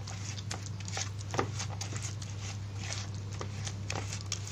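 A plastic rice paddle stirring and scraping a wet, gritty mash of soaked fish pellets and raw egg in a plastic bowl, in irregular soft squishing scrapes. A steady low hum runs underneath.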